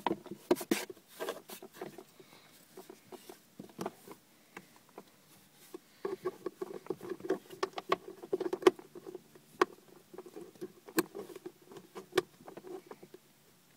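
Plastic glove box of a Hyundai Genesis Coupe being handled and its side clips pushed back into place by hand: irregular plastic clicks, taps and rubbing, with a few sharp, louder clicks scattered through.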